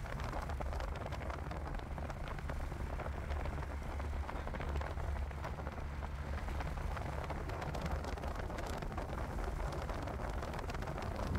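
Steady rain falling during a thunderstorm, with many small drop ticks over a continuous low rumble.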